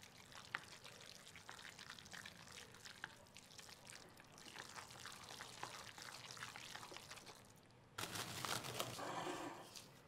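Chopsticks stirring a wet minced bun filling with chopped scallion in a glass bowl: soft squelching with many small clicks. About eight seconds in, a louder rustling noise cuts in.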